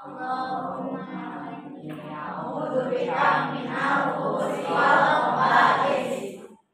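A class of schoolchildren's voices together in unison, louder in the second half and stopping suddenly near the end.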